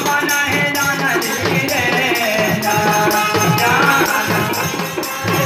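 Live devotional bhajan: a voice singing over a dholak hand drum played in a steady rhythm, with crisp strokes of a small jingling percussion keeping time.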